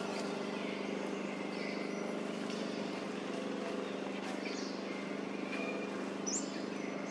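A steady low hum with short, high chirping calls every second or so; the sharpest call comes about six seconds in.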